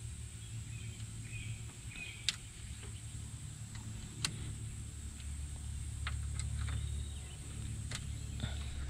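A few sharp clicks and snaps as high-tension ignition leads are pulled from and pushed back onto the distributor cap and coil towers of a Rolls-Royce 20/25 with its engine stopped, the loudest about four seconds in, over a faint low steady hum.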